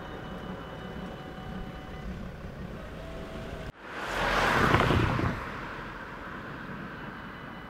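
Level-crossing warning bell ringing steadily while the barriers stand up, stopping about two seconds in. About four seconds in, a car passes close by with a loud rush of tyre and engine noise that swells and fades within about a second and a half.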